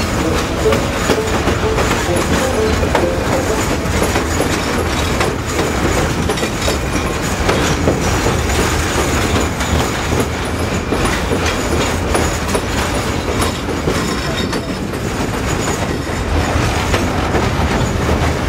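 Passenger train rolling along the track, heard from aboard: steady wheel and rail noise with scattered clicks from the rail joints.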